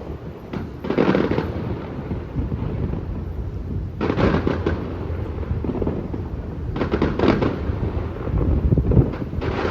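Fireworks display: a string of booming aerial bursts with crackle, the main ones about a second in, at four seconds, around seven seconds and near nine seconds, over a continuous low rumble.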